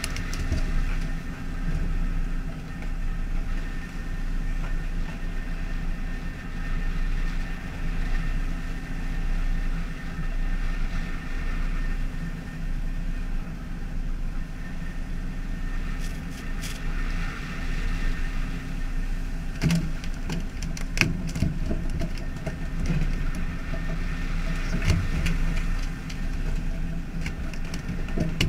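Steady low drone of a fishing boat's engine with wind and sea noise. From about two-thirds of the way in come sharp knocks and slaps as skipjack tuna are swung aboard on poles and hit the deck.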